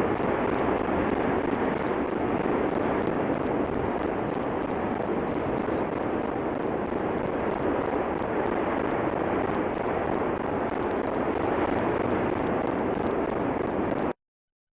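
Steady jet-like roar of the erupting Cumbre Vieja volcano's fissure vent, cutting off abruptly to silence just before the end.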